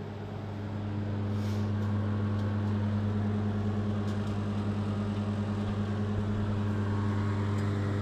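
LG microwave oven running with a steady low hum, on its newly fitted magnetron and high-voltage capacitor that replaced parts that had stopped it heating.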